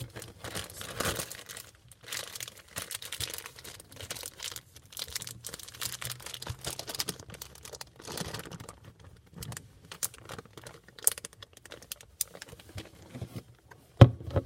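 Hands squishing and stretching butter slime: irregular wet crackling and small clicks, with a sharper knock near the end.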